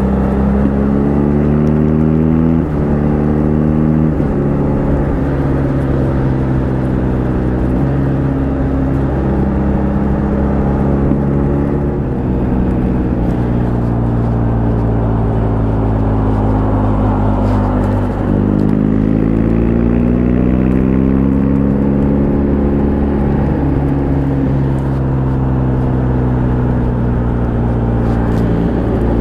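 Adventure motorcycle engine under way, its note changing with throttle and gear changes: the pitch climbs, then steps to a new level several times, with a stronger climb in the middle, over a steady rushing noise.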